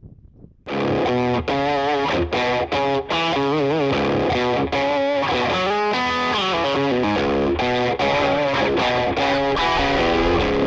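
Background music: a distorted electric guitar line with bending, wavering notes comes in suddenly under a second in, after a moment of faint wind noise.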